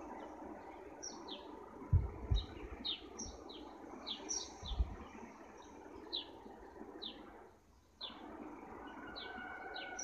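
House sparrows chirping: a run of short, falling chirps, several a second, over a steady background hum. A few low thumps come about two and five seconds in.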